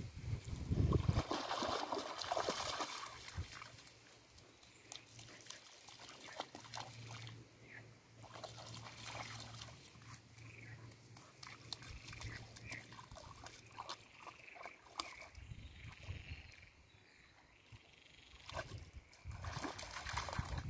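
Dog wading and splashing through shallow pond water, loudest at the start and again near the end as it moves through the water. In between there are quieter splashes and drips, and a run of short high-pitched calls.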